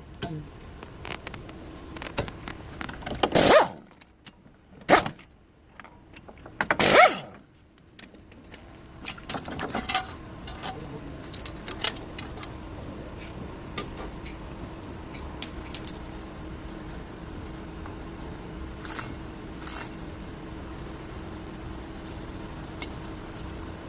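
Metal hand tools and parts clinking and knocking during front wheel bearing work. Three louder knocks come in the first seven seconds, then many lighter clicks over a faint steady hum.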